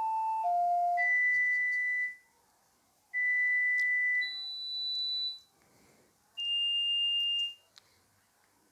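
Nokia 2600 mobile phone playing its built-in tones through its small speaker: the last notes of a short melody, then four separate electronic beeps of about a second each, the first two at the same pitch, the third higher, the fourth in between, with pauses between them.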